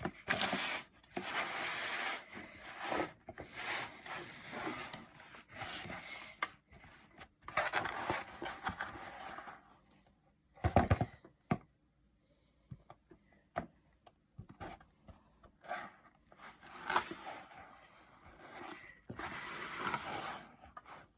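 Kinetic sand being sliced and squeezed: gritty scraping and crunching in repeated bursts, with a quieter stretch about halfway through broken by one sharper, louder crunch.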